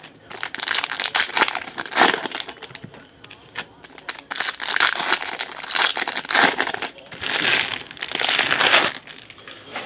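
A trading card pack wrapper being torn open and crinkled, in bursts of crackling with a short lull about three seconds in.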